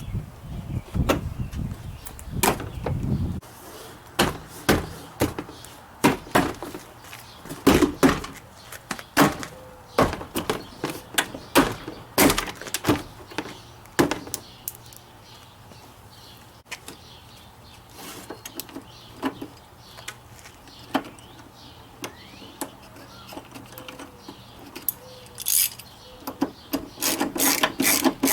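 Irregular knocks and clicks of a truck's interior door trim panel being fitted back on: the panel knocking against the door and its plastic retaining clips being pressed into place, with a denser run of clicks near the end.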